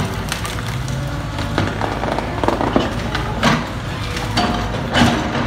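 SANY excavator's diesel engine running steadily while branches crack and snap as its bucket drags felled trees, with two louder cracks about three and a half and five seconds in.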